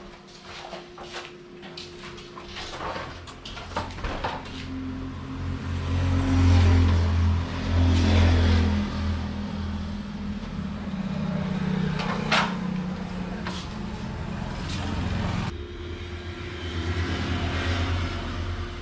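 Clicks and knocks as a motorcycle is handled, then the motorcycle's engine running at idle from about four seconds in, louder for a few seconds, with a single sharp knock partway through.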